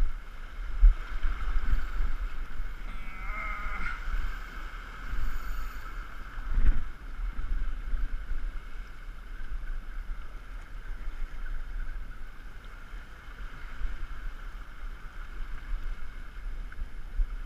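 Wind buffeting the microphone, with the sea washing against the shore rocks; a sharp knock about seven seconds in.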